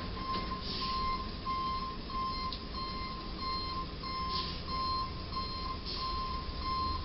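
Box truck's reversing alarm beeping at an even pace, about two beeps a second, as the truck backs up, over a low rumble of traffic.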